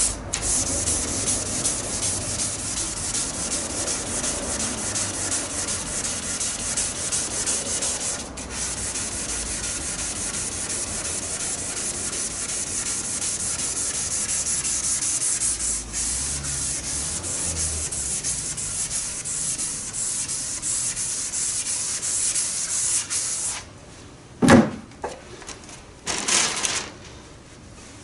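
Abrasive paper being rubbed by hand over primer surfacer on the roof of a 1978 Lincoln Mark V, block-sanding the primer level before paint. It is a fast, steady scratching with two brief breaks. The sanding stops a few seconds before the end, followed by one sharp knock and some short rustling.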